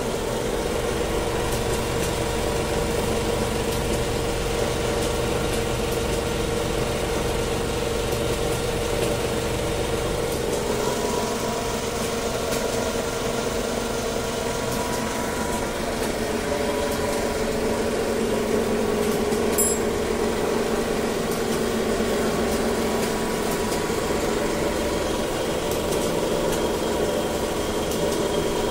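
Automatic filter-bag sewing line running steadily, its industrial sewing heads stitching the seam of a felt filter-bag tube as it feeds through. One short click about two-thirds of the way through.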